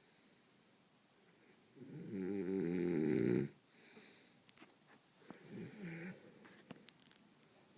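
A man snoring: one long, loud snore about two seconds in, then a shorter, quieter one about five and a half seconds in, followed by a few faint clicks near the end.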